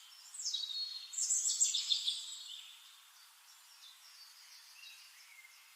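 Forest birdsong: a loud run of high chirps and quick falling whistles starting about half a second in, easing off after about two and a half seconds into fainter calls.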